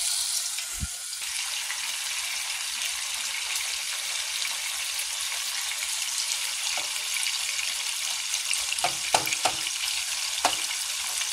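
Bacon sizzling steadily in hot oil in a frying pan, with a few sharp clicks and pops near the end.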